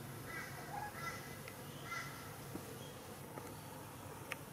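A crow giving a run of faint short calls, about one a second, that stop about two seconds in.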